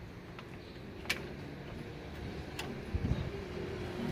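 Two sharp clicks about a second and a half apart over a faint low hum, with a dull low thud near the end.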